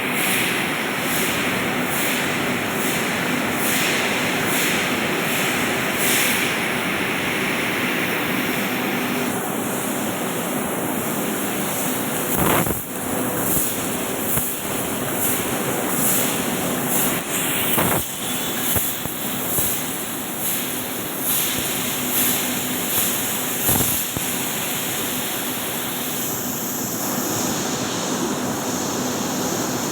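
CNC laser cutting machine running: a steady hiss, brighter for the first third, with a few sharp clicks at intervals.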